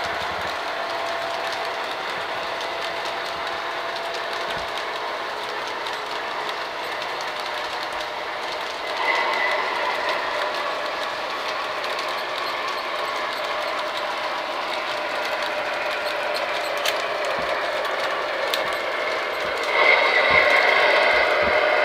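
O-gauge three-rail model trains running on a layout: a steady rolling noise of wheels on the metal track. It grows louder about nine seconds in and again near the end as a diesel-outline locomotive and its freight cars pass close by.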